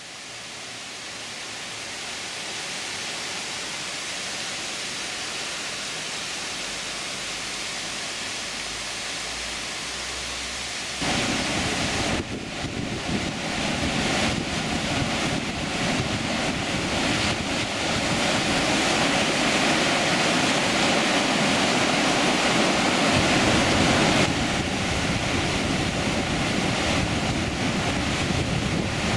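Waterfall water rushing and crashing, a steady noise that fades in at the start and turns abruptly louder and deeper about eleven seconds in, shifting again near twenty-four seconds.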